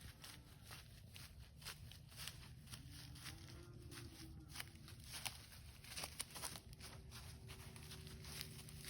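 Faint, scattered rustles and crunches, as of footsteps in dry leaves, over a low steady hum.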